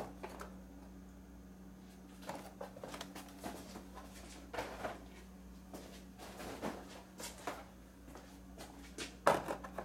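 Faint handling noise of carded action-figure blister packs: scattered light clicks and rustles of card and plastic, a little louder near the end, over a steady low hum.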